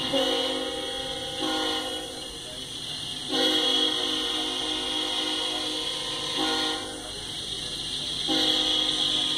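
Freight locomotive's air horn sounding a chord in long blasts, three of them broken by short gaps, over the steady rumble and hiss of the freight train rolling past.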